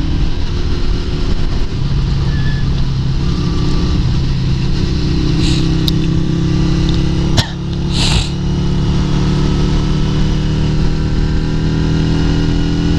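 A 1996 Yamaha SRV250 Renaissa's air-cooled V-twin running steadily at speed. Wind noise rushes past three times, and about seven seconds in there is a click and a brief drop in the engine sound.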